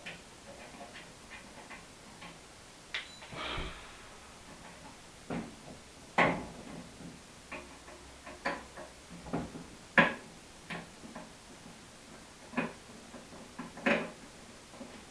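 Irregular clicks and knocks of screwdrivers and loose metal parts being handled while screws are taken out of a scrap microwave, with a short scrape a few seconds in and the loudest knocks about six, ten and fourteen seconds in.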